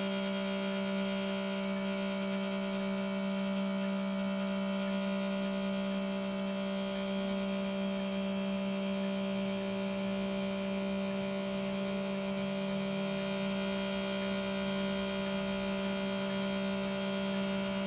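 Steady electrical hum: one low tone with a buzzy stack of overtones, unchanging in pitch and level throughout.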